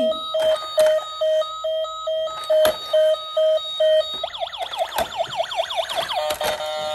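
Toy police ambulance's electronic siren: a run of evenly spaced beeps, about three a second, then about four seconds in it switches to a fast warbling siren. A few sharp knocks come through over it.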